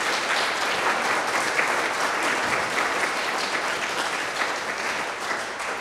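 Audience applauding, a dense steady clapping that tails off near the end.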